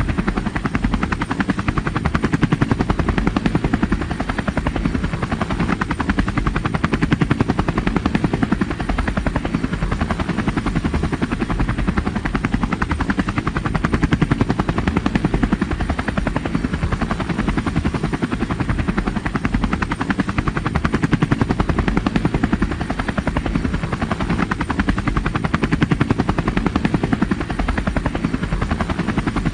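A steady, loud, rapidly pulsing low mechanical drone.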